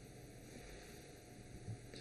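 Near silence: faint steady room hiss in a pause of narration, with one tiny click near the end.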